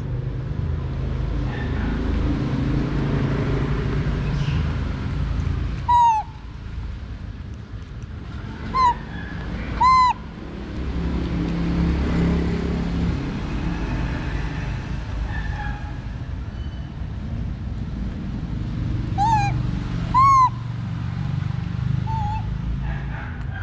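A monkey gives short, high-pitched calls that rise and fall, close to the microphone: three about six to ten seconds in and two or three more near the end. A steady low rumble runs underneath.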